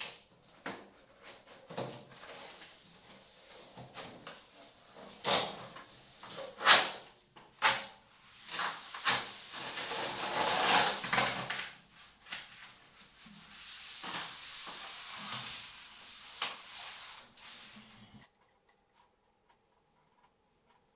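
PVC wall cladding panel being handled and pushed into place by hand: a string of sharp knocks and clicks, with two longer stretches of plastic scraping and sliding, cutting off abruptly near the end.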